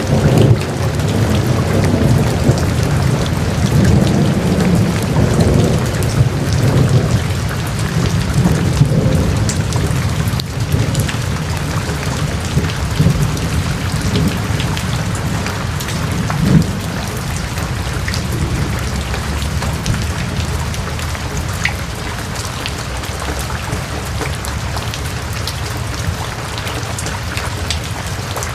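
Heavy rain falling in a steady dense hiss, with a low rolling rumble of thunder under it through roughly the first ten seconds that then fades, leaving the rain alone.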